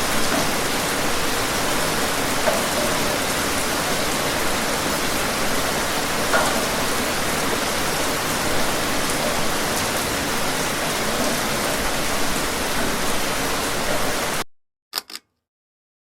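Steady pouring rain, a dense even hiss with a few slightly louder splashes. It cuts off abruptly near the end, followed by two brief clicks and then silence.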